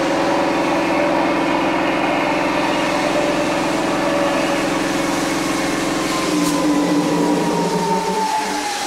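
Mumbai suburban electric local train (EMU) pulling out of a station, heard from the open doorway: a steady electric hum and motor whine. About six seconds in the hum changes and a whine slowly falls in pitch.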